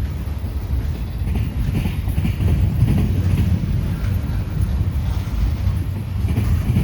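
Freight train rolling slowly past, a steady low rumble with irregular wheel knocks and clatter over the rail joints.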